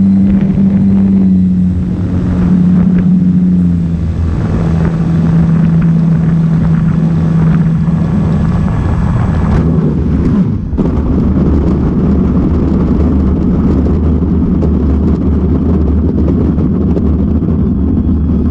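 Electric motor and propeller of a Cessna 150 Carbon Z RC model plane, heard from on board: a steady drone with air rushing past, sinking slowly in pitch. About ten seconds in it breaks off suddenly and gives way to a rough low rumble as the model rolls on asphalt.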